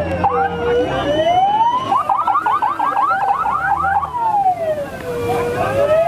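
Police vehicle siren wailing, its pitch sweeping slowly up and then back down, with a burst of about ten rapid yelps around the middle.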